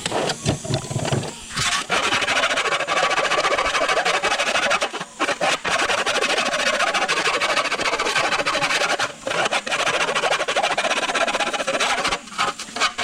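A power tool abrading rust off the metal of a vintage pedal car. It runs as a steady, loud scratchy noise in long stretches, with a few short pauses, after a few knocks at the start.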